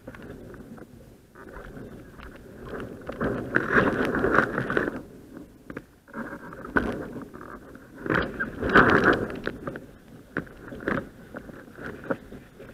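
Water rushing and splashing against a windsurf board as it sails, surging louder twice, about three seconds in and again about eight seconds in.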